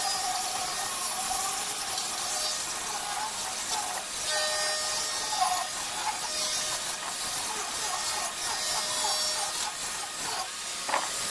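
Angle grinder with a sanding disc running steadily, its motor giving a steady whine under a hiss as the disc sands wooden slats.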